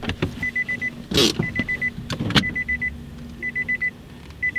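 Car's warning chime: rapid high beeps in bursts of about six, the bursts repeating about once a second, with a steady low hum beneath. A few clicks and a short rustle about a second in come from the driver unbuckling the seatbelt and moving in the seat.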